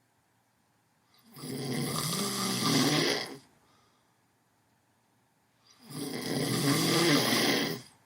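Someone asleep snoring: two long snores, each about two seconds, about four seconds apart. Each grows a little louder and then stops sharply.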